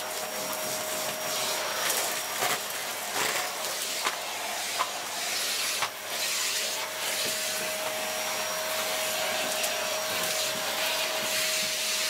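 Contempo G020-18 bagless cyclonic canister vacuum running on max with a steady whine, sucking up debris from the floor that clicks sharply through the hose, mostly in the first half.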